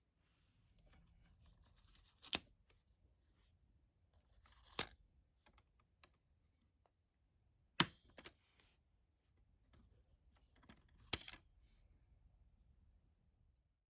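Four sharp clicks spaced a few seconds apart, with a few smaller ticks and faint rustling between them: small hardware being handled and snapped into place at a 27-inch iMac's memory bay.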